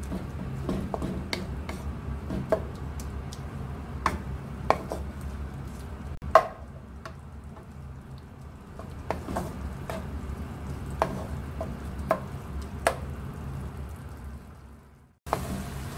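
Bamboo spatula stirring and scraping minced chicken around a non-stick wok, with irregular knocks of the spatula against the pan, the loudest about six seconds in, over a steady low hum. The sound fades out just before the end.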